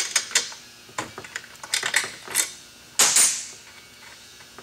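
Husqvarna 359 chainsaw being handled: a quick, irregular series of sharp plastic and metal clicks and knocks, with a louder, longer clatter about three seconds in.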